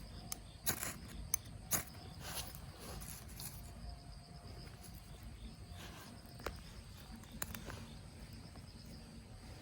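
Quiet outdoor ambience: scattered sharp clicks and snaps, several in the first few seconds and a couple more later, over a low rumble.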